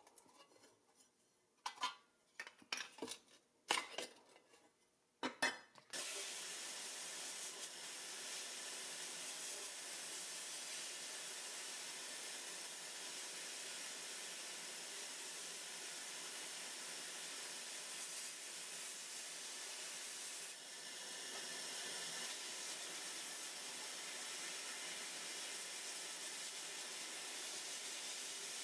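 A few sharp metal clicks and knocks as a bracket is worked off a pressed-steel toy truck, then from about six seconds in the steady hiss of a sandblast cabinet nozzle blasting paint and rust off the toy's steel cab.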